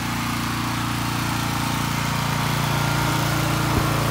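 Gas engine of a Simpson pressure washer running steadily while the spray gun is idle, with one short knock near the end.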